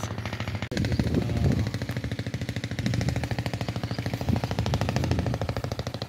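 An engine running steadily, its exhaust a rapid, even putter of about twenty beats a second over a low hum.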